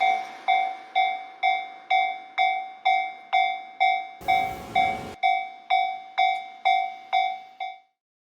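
Japanese level crossing warning bell ringing its kan-kan alarm, about two dings a second, then stopping abruptly near the end. A fading rumble of the passing train is heard at the start, and a brief burst of noise comes about four seconds in.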